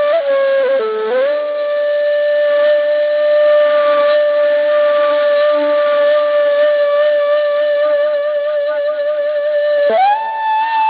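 A flute playing one long held note that wavers slightly. About a second in the pitch dips briefly, and near the end it steps up to a higher note.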